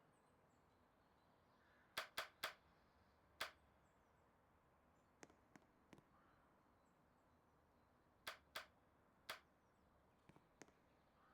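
Near silence broken by sharp clicks. A quick run of three comes about two seconds in, with a fourth a second later. Fainter ones follow around the middle, and three more loud ones come near the end.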